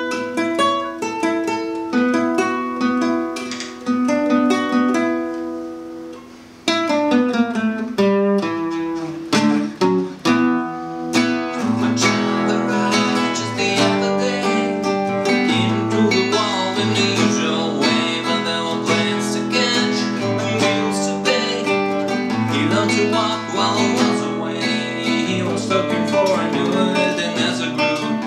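Nylon-string classical guitar fingerpicked, single notes ringing out, with a brief lull about six seconds in. From about eleven seconds in it is played fuller and a man's voice sings along.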